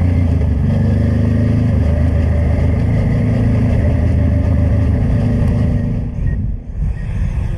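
Honda Transalp 600's V-twin engine running steadily under way. About six seconds in it cuts off, and gusty wind buffets the microphone.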